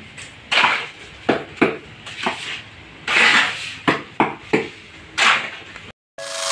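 Cement mortar being mixed on a concrete floor with a long-handled tool: repeated gritty scraping strokes, roughly one or two a second, cutting off suddenly near the end.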